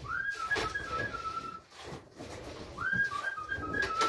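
A person whistling twice, each whistle sliding up and then held with a wavering pitch: a fancier's whistle to call homing pigeons down to the loft.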